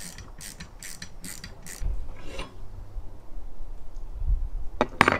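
Ratchet wrench clicking in quick strokes, about three a second, as a roof-rack mounting screw is turned. It stops after about two and a half seconds, and two sharp clicks come near the end.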